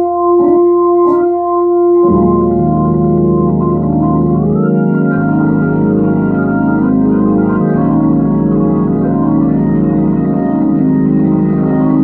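Vintage organ played through a Leslie 147 rotating speaker with a freshly refurbished amplifier, as a test of the amplifier. It plays sustained, wavering chords, with two sharp clicks near the start and a fuller chord with deep bass coming in about two seconds in, then several chord changes.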